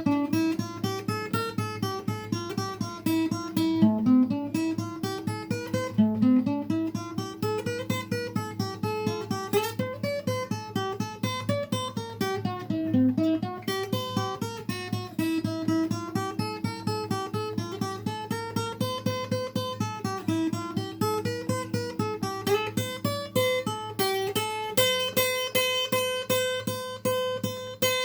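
Acoustic guitar played in a fast, even rhythm, with a melody line stepping up and down over held low notes; an instrumental passage with no singing.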